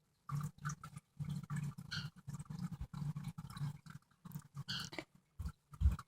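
Paper bag rustling and crinkling in quick, irregular bursts as cockatiels clamber about on and inside it.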